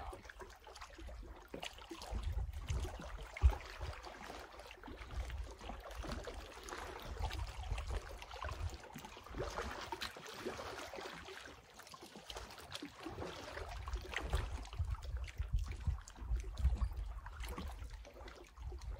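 Small waves lapping and trickling against shoreline rocks, with a low wind rumble on the microphone that rises and falls in gusts, and one sharp knock about three and a half seconds in.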